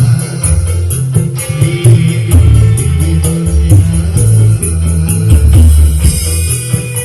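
Loud music played through a sound system powered by a Fest HK-41000 amplifier during a sound check, with heavy pulsing bass and a steady high tick of cymbals on the beat.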